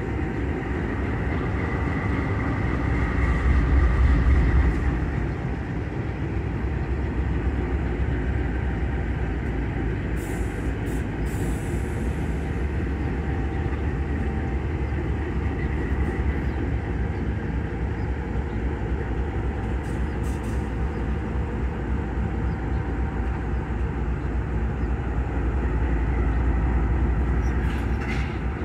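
A pair of GE C44EMi diesel-electric locomotives running as they move slowly through a yard: a steady deep engine rumble that swells briefly a few seconds in and again near the end. A few short sharp high sounds come in around ten and twenty seconds in.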